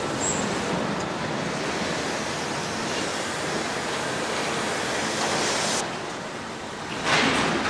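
Steady rushing noise with no distinct tone. Its high end drops away about six seconds in, then a louder hissing swell comes near the end.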